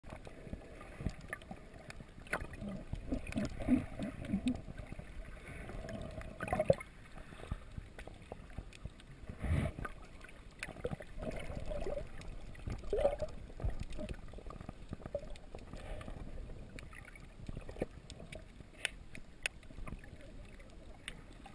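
Muffled underwater sound picked up by a GoPro Hero2 in its waterproof housing just below the surface: water sloshing and gurgling, with scattered knocks and a few dull thumps.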